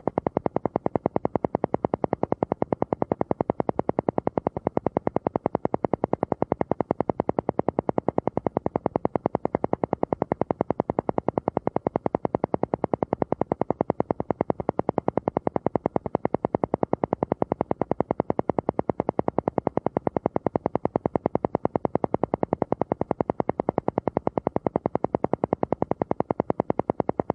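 Alpha-wave brainwave-entrainment noise: an electronic sound pulsing on and off fast and evenly, about ten pulses a second, with no change in speed or loudness.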